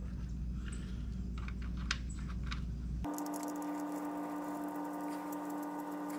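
Faint light clicks and ticks of a gloved hand threading the oil drain plug back into a Harley-Davidson Street Bob by hand, over a steady hum. About three seconds in, the hum switches abruptly to a different steady hum with a clear pitch.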